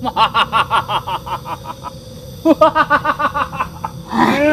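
A person laughing in rapid, even 'ha-ha-ha' pulses, in two runs with a short pause between them; near the end a long, drawn-out voice begins.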